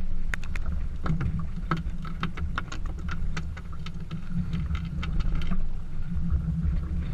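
Choppy lake water slapping against a small boat's hull in quick, irregular splashes, over a steady low rumble. The slaps die away about two-thirds of the way through.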